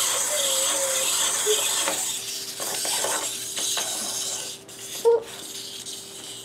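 Clockwork spring motor of a wind-up toy dog running as the toy waddles along, until it winds down and stops about four and a half seconds in. A brief knock follows about five seconds in.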